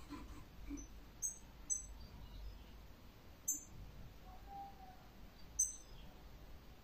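Caged European goldfinch giving a few short, high chirps spaced a second or two apart, faint and sparse rather than a continuous song.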